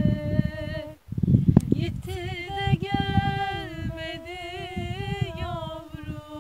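A voice singing a slow unaccompanied melody in long held notes with ornamented turns, breaking off briefly about a second in. Wind buffets the microphone underneath.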